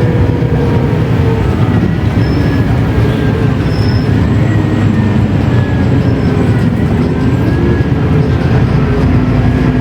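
Mercedes-Benz O500U city bus engine and ZF automatic gearbox running under way: a loud, steady rumble with a faint whine that slowly rises and falls in pitch.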